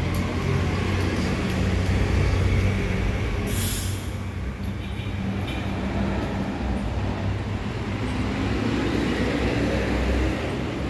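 Street traffic with a diesel bus engine running close by, a steady low drone. A brief hiss comes about three and a half seconds in.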